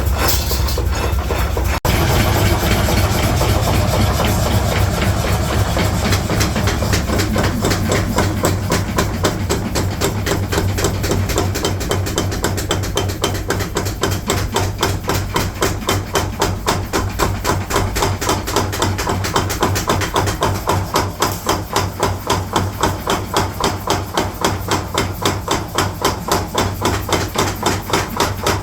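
Mechanical power hammer forging steel in rapid, evenly spaced strikes, several a second, over a steady low machine hum.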